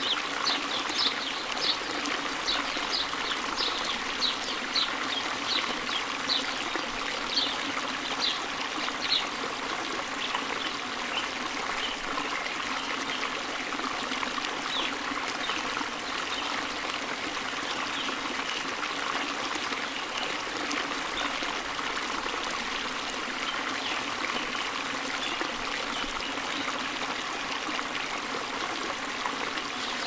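Steady trickling and splashing of water. Over it a bird repeats a short high note about twice a second for the first nine seconds or so, then calls more faintly and sparsely.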